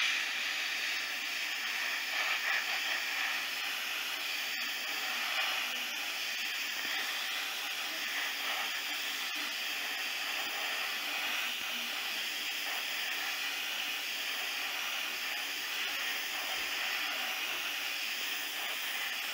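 Airbrush spraying black primer onto a plastic test piece: a steady, even hiss of air and atomised paint from the nozzle.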